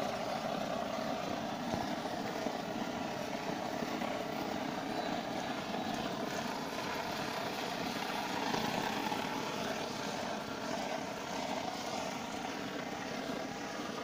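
Hand-held brass blowlamp burning steadily with a continuous rushing hiss, its flame played over the heat-shrink breakout of an 11 kV XLPE cable termination to shrink it.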